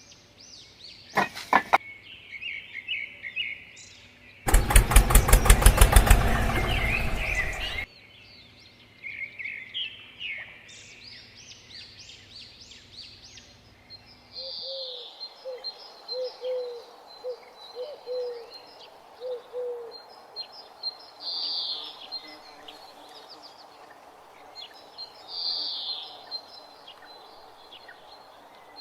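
Small birds chirping, with a loud, rapidly pulsing mechanical burst of about three seconds a few seconds in. A faint low hum stops abruptly about halfway through.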